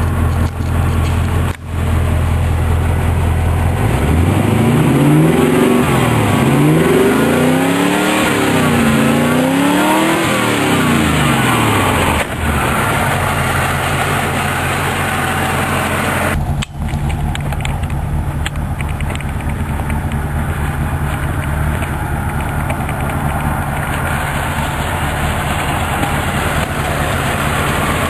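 A 1981 Land Rover Series 3 Stage 1's V8 engine idling, then revved up and let fall back three times, then idling steadily again. A brief sharp break about 16 seconds in, after which the steady running goes on.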